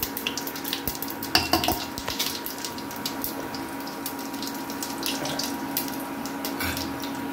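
Hot oil sizzling and crackling in a cooking pan as a tempering fries, with a few knocks of a spoon against the pan about a second and a half in.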